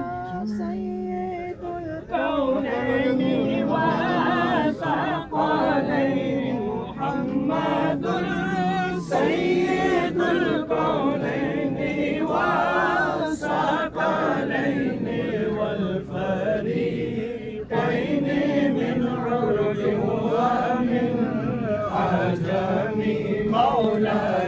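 Several voices chanting together in long melodic phrases with short breaks, cutting off suddenly at the end.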